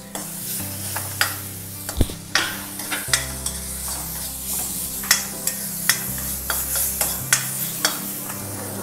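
Metal ladle stirring and scraping ginger-garlic paste in a cast-iron kadai, with repeated sharp clinks against the pan over a steady sizzle of the paste frying in hot oil.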